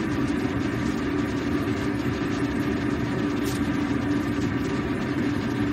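Steady low hum and rushing noise around a pan of soup simmering on a gas stove, with a faint click about three and a half seconds in as chopped green onion is dropped into the soup.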